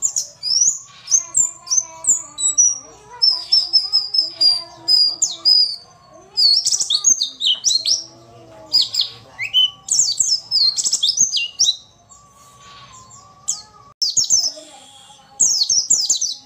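A white-eye (pleci) singing a rapid, high-pitched run of chirps and quick sweeping notes, with a brief lull about three-quarters of the way through. It is presented as a female pleci's call, used as a lure to provoke lazy males into answering and singing.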